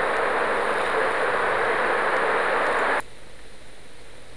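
A steady rushing noise that cuts off abruptly about three seconds in, leaving a fainter hiss.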